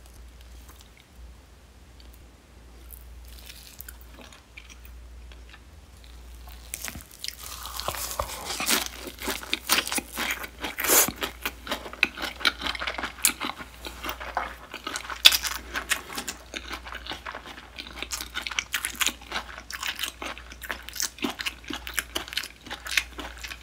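Close-up chewing of a grey mullet sashimi wrap made with leafy greens and sprouts: crunching chews, faint for the first several seconds, then dense and steady from about seven seconds in.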